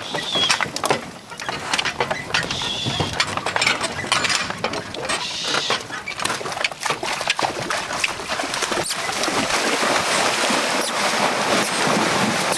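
Horse-drawn cart on the move: hooves and the wagon's knocking and rattling, with a few short high squeaks in the first half. A steady rush of noise builds from about two-thirds of the way through.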